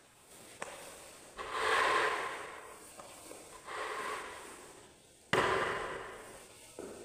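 A wet mop swishing across a wet floor in three strokes, each starting suddenly and fading; the last is the loudest.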